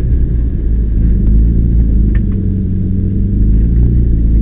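Rally car engine running steadily at low revs, heard from inside the stripped cabin, with a few faint clicks.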